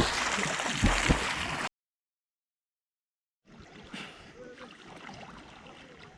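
Lake water splashing and sloshing close by, with low thuds, typical of someone swimming. It cuts off abruptly after about a second and a half, leaving dead silence, and then comes back as fainter water lapping.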